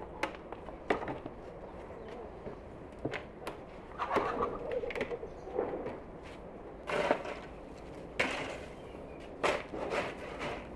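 Shovel scraping and scooping soil on a concrete path: several short scrapes, with scattered knocks in between.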